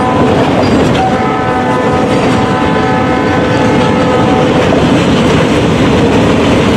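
NECR 3845 locomotive horn sounding: the tail of one blast right at the start, then a longer blast from about a second in until about four and a half seconds. It sounds over the loud, steady rumble of the passing train, which carries on after the horn stops.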